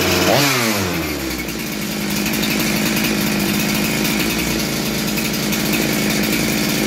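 Husqvarna 372XP big-bore two-stroke chainsaw engine just after starting: the revs fall away sharply in the first second or so, then it settles into a steady idle.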